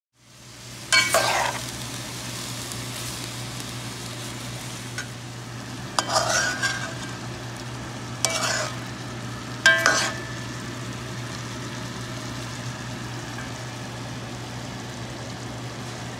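Seasoned chicken frying and sizzling in browned sugar and oil in a pot, stirred with a metal spoon: the browning stage of Trinidad stew chicken. A steady sizzle over a low hum, broken by four short, louder bursts of sizzle and spoon scraping, about a second in and near six, eight and ten seconds.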